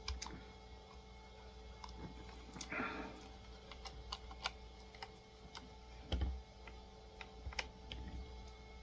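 Scattered small clicks and taps of a flathead screwdriver working at a die-cast model car's plastic packaging fastenings, with a brief soft rush about three seconds in and a dull thump about six seconds in.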